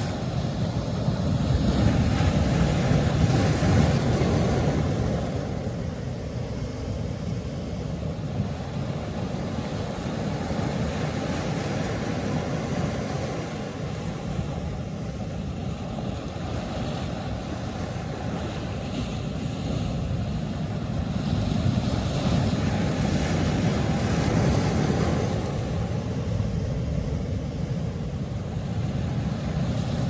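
Ocean surf breaking over lava-rock boulders: a continuous rush of water, swelling louder about a second in and again about two-thirds of the way through as bigger waves crash.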